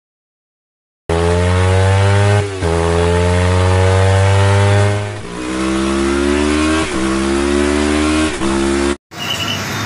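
A motorcycle engine accelerating hard through the gears. It starts about a second in, climbs in pitch, drops back at each of four upshifts, and cuts off suddenly near the end.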